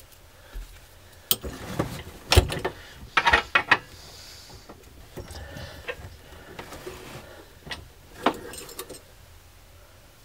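Small metal clicks, knocks and scrapes of a water heater's drain petcock and plumbing fittings being handled and threaded back together by hand, with a sharp knock about two and a half seconds in and a run of quick clicks a second later.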